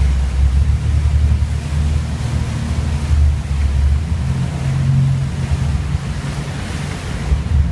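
Car driving through a tunnel, heard from inside the cabin: a steady low rumble of engine and road noise.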